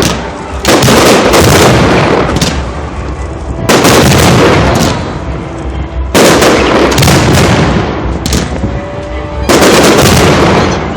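Fireworks display: four loud bursts about three seconds apart, each trailing off over a second or so.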